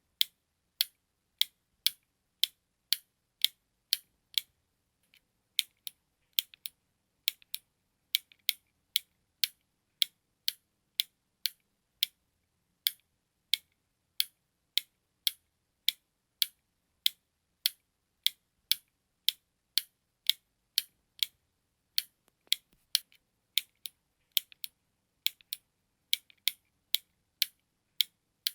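A button being clicked: sharp, high, dry clicks in a steady rhythm of about two a second, with a few short irregular pauses.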